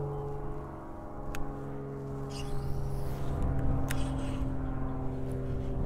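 A boat motor running steadily with a humming tone that drops slightly in pitch just after the start, with a couple of sharp clicks during it.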